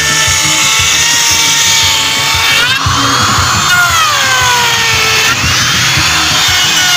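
Makita electric router running at high speed while it cuts a profile along the edge of a wooden board. Its whine dips in pitch several times as the bit takes the cut, then recovers.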